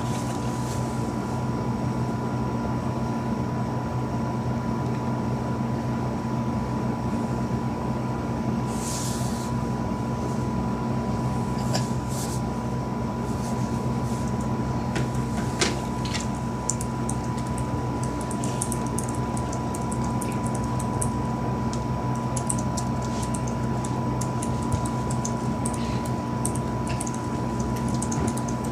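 A steady mechanical hum with a held high tone over a low drone, unchanging throughout, with a few sharp clicks near the middle and light rapid clicking in the last third.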